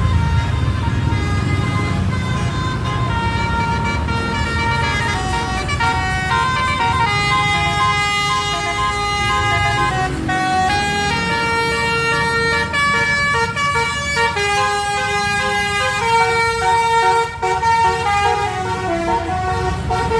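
Bus's telolet multi-tone horn playing a tune in held notes that step up and down in pitch, over the low rumble of the bus engine.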